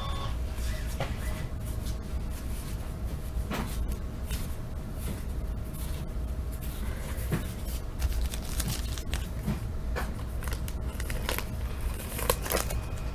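Hands working a 1983 Topps baseball wax pack: scattered small clicks and crinkles of the wax wrapper and the cardboard cards being handled and flipped, over a faint steady hum.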